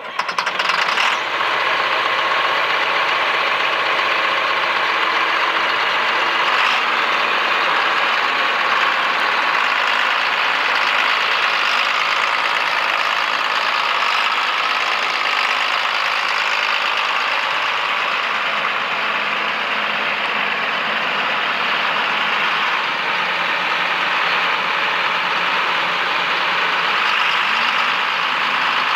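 John Deere 4955 tractor's six-cylinder turbocharged diesel running steadily as the tractor drives slowly around.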